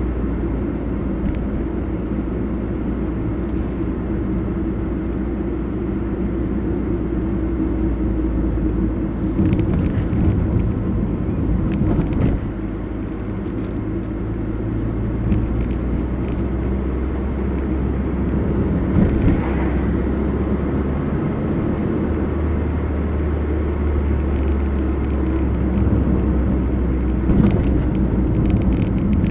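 A car driving steadily, its engine hum and tyre road noise running evenly, with a few short knocks and rattles now and then.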